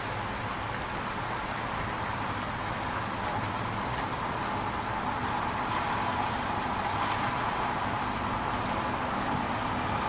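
Steady rain falling on a city street, mixed with the continuous hiss of traffic on wet roads, growing a little louder in the second half.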